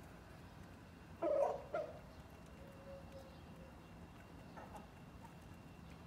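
Chickens calling: one loud squawk a little over a second in, a shorter call right after it, and a faint call later.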